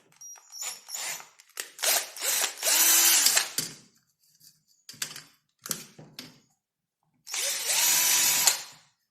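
Small power drill run in several short bursts and two longer runs of about two seconds, its motor whirring up to speed and winding down each time.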